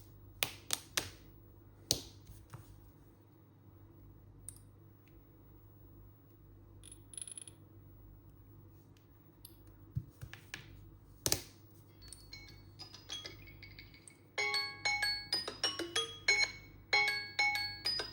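A few scattered sharp clicks and taps, then about twelve seconds in a Samsung Galaxy phone's alarm tone starts: a melody of short, bright pitched notes that gets much louder about two seconds later and repeats.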